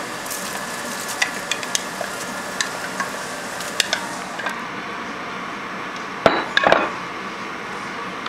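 Wooden spoon stirring a pot of soup as wild rice is poured in from a glass measuring cup, with scattered light clicks and scrapes. A short clatter of louder knocks comes about six seconds in.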